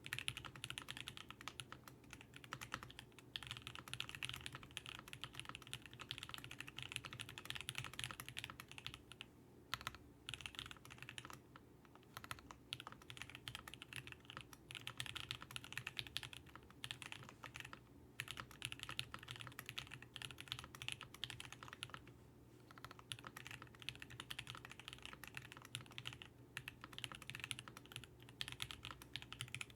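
Continuous typing on a Vega 65% mechanical keyboard with lubed and Tx-filmed Alpaca linear switches and GMK keycaps: a fast, steady run of key clacks broken by a few short pauses.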